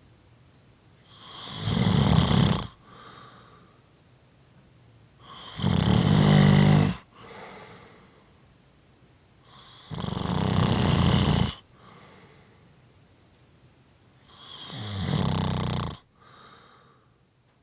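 A sleeper snoring in a steady rhythm: four loud, low snores about four seconds apart, each lasting a second or so, with softer breaths between.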